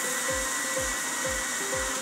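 Electric mixer grinder running, its motor and blades whirring in a small steel jar as it grinds spices and grated coconut into a masala; the motor stops at the end. Background music with a beat about twice a second plays throughout.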